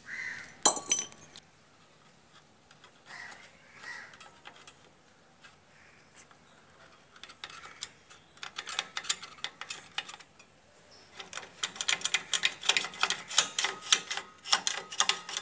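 Metal hand tools and drum-brake parts being worked by hand: a few metallic clinks in the first second and a half, then from about eleven seconds in a fast run of metallic clicks, several a second.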